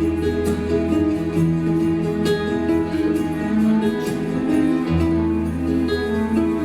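Live nuevo flamenco band playing: guitar picking quick plucked notes over sustained bass notes, the bass shifting to a new note about five seconds in.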